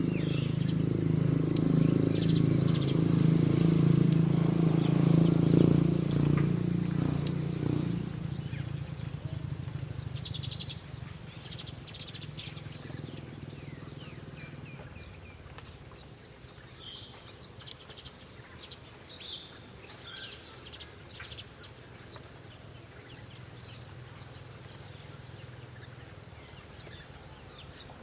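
Small wild birds giving short, scattered chirps outdoors. A louder low hum of unclear source fills the first eight seconds and fades out.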